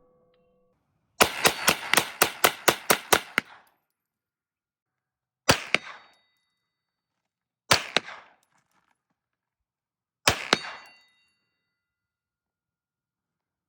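Ruger PC Carbine takedown, a 9mm pistol-caliber carbine, firing subsonic rounds. About ten shots go off in quick succession over roughly two seconds, then three single shots a couple of seconds apart. Two of the single shots are followed by a short metallic ring.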